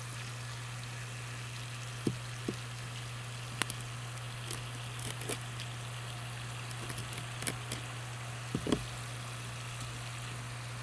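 Steady low hum of a camp water pump running, with scattered light clicks and scrapes from a knife cutting the spiny fins off a small bream on a wet wooden table.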